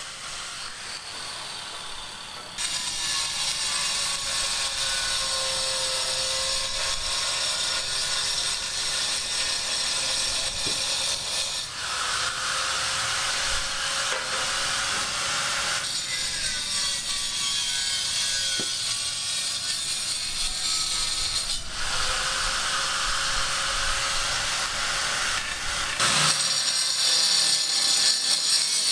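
Building-work tool noise, a steady rasping like sawing or scraping, in several short clips cut together so the sound changes abruptly every few seconds.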